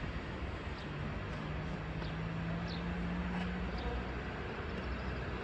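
Steady street noise with a low hum underneath. A low drone holds for about three seconds, and a few short, high bird chirps come through at intervals.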